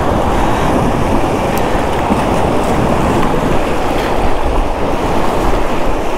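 Steady wind rumbling and buffeting on the microphone.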